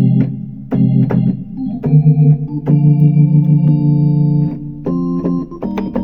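Roland VR-09 combo keyboard playing an organ tone: sustained chords, held and changed several times, with a short click at the start of each chord.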